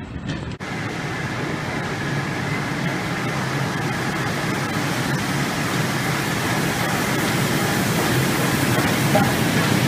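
LMS Black Five 4-6-0 steam locomotive 45407 drawing into a covered station, a steady hiss of steam over a low rumble, growing gradually louder as it comes nearer.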